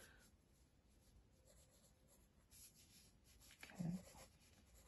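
Pencil sketching lightly on paper: faint, scratchy strokes. A brief low sound stands out a little under four seconds in.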